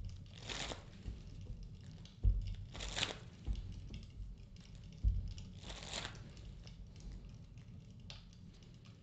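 A deck of cards being shuffled by hand: three short swishes of the cards about three seconds apart, with two low thumps in between.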